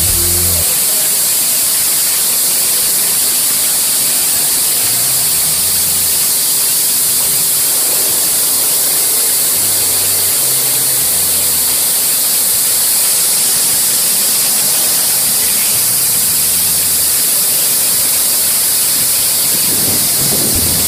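WashTec automatic rollover car wash running: a steady hiss of water spraying over a car as the rotating brushes wash it.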